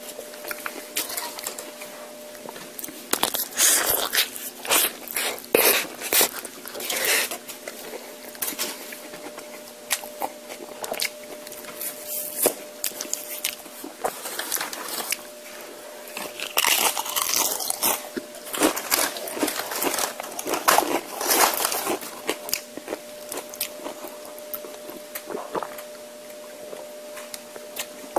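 Tortilla chips crunched and chewed close to the microphone, in irregular loud spells of crunching with quieter chewing between, over a faint steady hum.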